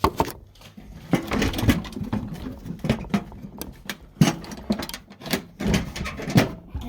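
Toolbox being moved, with tools clattering and rattling inside it in quick, uneven knocks.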